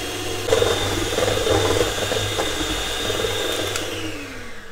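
Bluesky electric hand mixer running, its wire beaters whipping chilled whipping cream in a stainless steel bowl until it thickens to soft peaks. Near the end the motor's pitch falls as it slows down.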